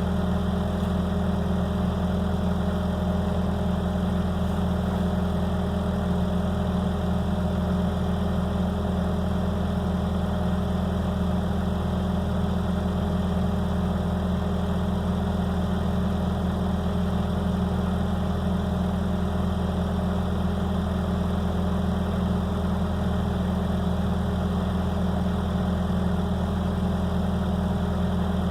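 Skid steer engine running at a steady speed, a constant low hum that holds the same pitch throughout without revving.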